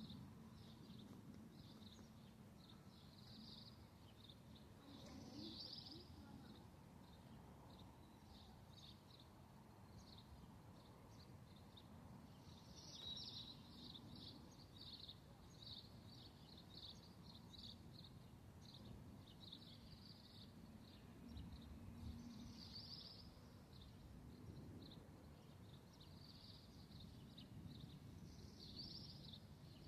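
Faint background ambience: small birds chirping in short, irregular bursts throughout, over a low background rumble. No siren is sounding.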